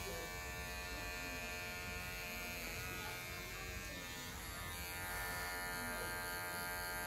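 Cordless electric hair clipper running with a steady buzz as it cuts the short hair at the side of the head into a fade.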